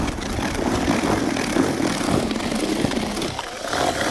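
Cordless drill with a paddle mixer running, churning wet fish-meal groundbait in a plastic bucket. A steady whine comes in near the end.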